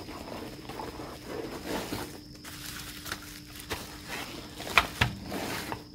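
Bubble wrap crinkling and rustling as a bubble-wrapped item is handled and pulled out of a fabric carrying case, with a few sharp clicks; the loudest comes near the end.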